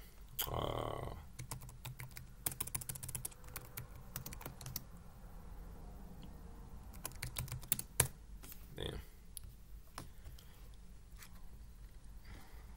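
Computer keyboard typing: two runs of rapid keystrokes, the second shorter, as a web search is typed.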